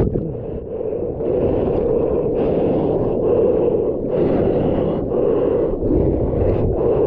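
Churning whitewater of a broken wave rushing around a surfer's camera at water level, a loud low rush with a splashy hiss that cuts out and comes back every second or so.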